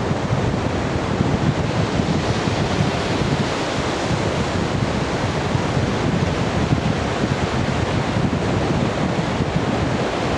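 Surf breaking offshore on a wide sandy beach, a steady unbroken wash of waves, with wind buffeting the microphone.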